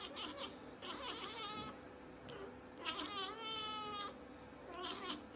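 Cat meowing repeatedly: short calls, with a longer, drawn-out meow about three seconds in.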